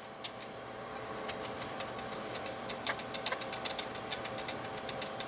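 Soft, irregular clicks and ticks, a few a second, from a pet budgie at close range, over a faint steady hum.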